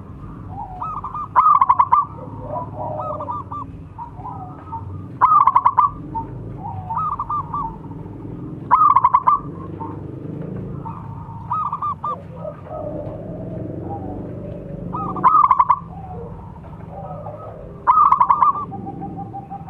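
Zebra dove (perkutut) cooing: five loud phrases of rapid, stuttering coos a few seconds apart, with softer coos between them.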